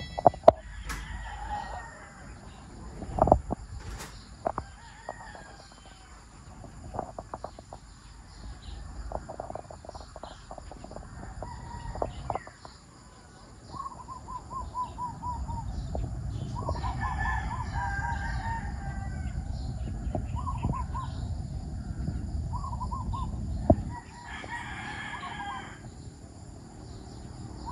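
A rooster crowing, twice in the second half, among short runs of clucking and bird chirps, over a low rumble.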